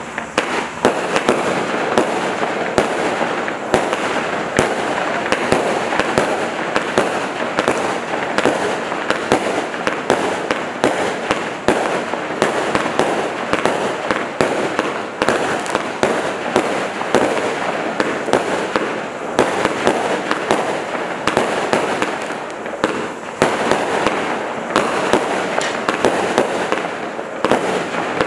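Standard Fireworks Beefeater 54-shot firework cake firing: a rapid, unbroken run of shells bursting, many sharp bangs in quick succession with crackling between them.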